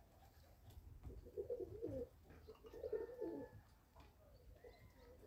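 A pigeon cooing faintly, two phrases of low wavering coos, about a second in and again near the middle.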